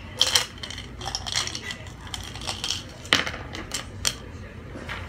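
Glass cup of ice water being handled: scattered sharp clinks and knocks, a cluster just after the start, more about a second in, and a few more between three and five seconds in.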